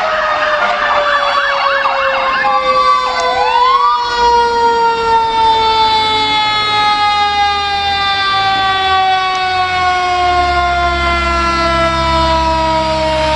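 Fire truck sirens: a fast warbling yelp for the first couple of seconds, then a siren sweeps up and winds down in one long, slowly falling wail. A heavy truck engine rumbles underneath near the end.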